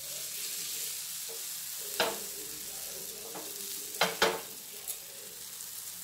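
Lentil fritters frying in oil on a flat tawa: a steady sizzle. Three sharp metallic knocks cut through it, one about two seconds in and a quick pair about four seconds in, as the pan is moved about on the stove.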